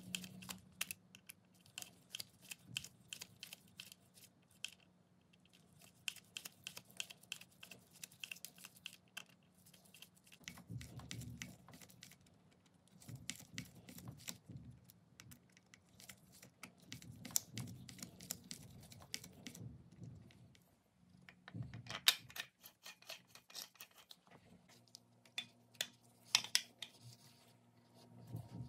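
Small screws being turned into an antique Black & Decker drill's metal housing with a precision screwdriver: runs of rapid fine clicks, with quieter rubbing and handling of the housing in between.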